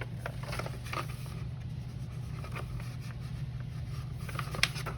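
Paper rustling with light clicks as a plastic model kit's instruction manual is handled and turned over, with a sharper click near the end. A steady low hum runs underneath.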